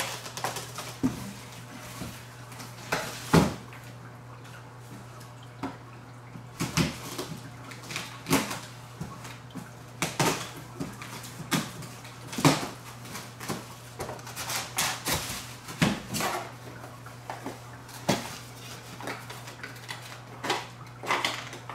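Plastic parts and packaging being handled while an aeroponic clone machine is unpacked: irregular clicks, knocks and light clatter, with a steady low hum underneath.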